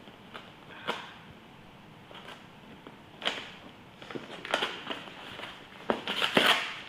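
A taped cardboard shipping package being handled: scattered taps, crinkles and scrapes, thickening into a louder noisy scraping burst about six seconds in.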